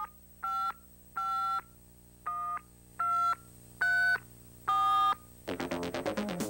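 Touch-tone phone keypad dialing seven digits: seven short two-note beeps, unevenly spaced. About five seconds in, fast-pulsing electronic music starts.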